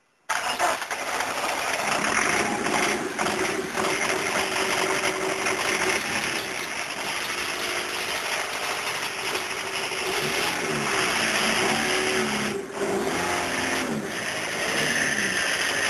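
Freshly rebuilt XUD9 1.9-litre turbo diesel engine running loudly just after its first start, its pitch rising and falling as it is revved. The sound begins abruptly a moment in.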